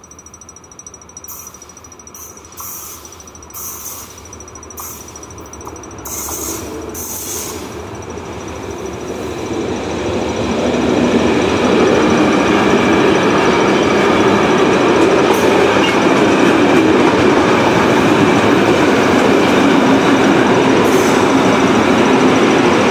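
A freight train of intermodal wagons carrying trailers approaches on the near track and rolls past close by. The rolling wheel noise builds over the first ten seconds or so, then holds loud and steady as the wagons go by.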